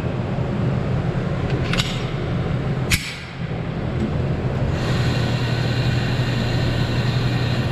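Loading a Smith & Wesson M&P Shield .40 pistol: a click as the magazine seats about two seconds in, then a sharp metallic snap about a second later as the locked-back slide is released and springs forward. A steady low rumble runs underneath.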